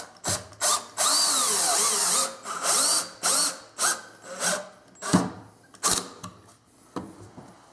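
Cordless drill-driver driving square-drive pocket-hole screws into soft wood. The motor runs steadily for over a second about a second in, then comes in a series of short bursts as the screw is snugged down.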